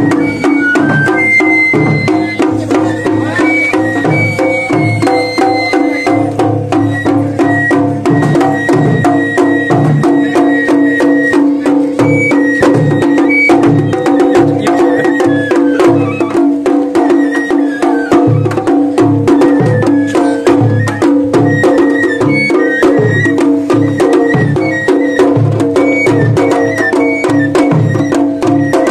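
Japanese festival music (matsuri-bayashi). A bamboo transverse flute (shinobue) plays a melody of held, stepping high notes over steady taiko drumming struck with sticks, with sharp wooden stick clicks among the beats.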